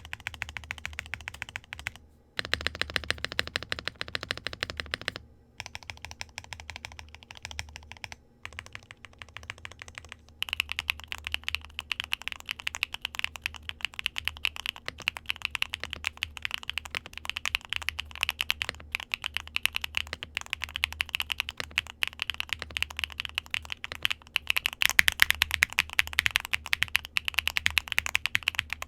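Fast typing on a Luminkey60 Pro, a gasket-mounted aluminium 60% keyboard with foam and Luminkey Astral linear switches (PC top, POM bottom and stem). The keystrokes come as a dense, steady patter, with brief pauses about two, five and eight seconds in.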